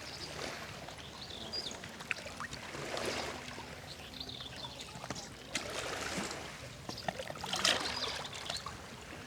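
Small sea waves washing onto the shore, the surf swelling and fading about four times.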